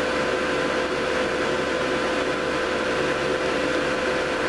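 Cooling fans blowing air through a GS-35B transmitting triode's airbox, run a little above their rated voltage to push about 102 cubic feet a minute: a steady rush of air with a constant mid-pitched tone running through it.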